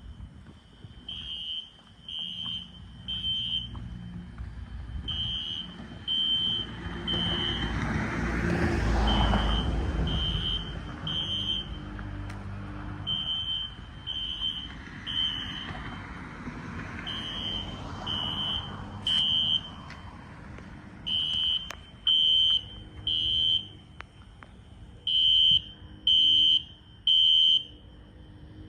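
System Sensor SpectrAlert fire alarm horns sounding the temporal-three evacuation pattern: three short, high beeps, a pause, then again, repeating about every four seconds. Twice a passing vehicle swells up and fades away under the beeps.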